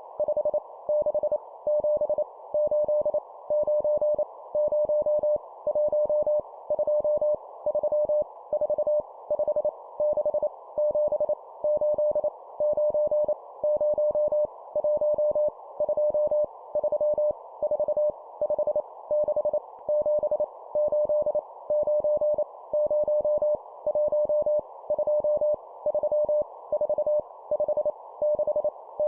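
Morse code numbers sent at 25 words per minute: a single steady beep tone keyed on and off in quick dots and dashes, in evenly spaced groups, over a constant soft hiss.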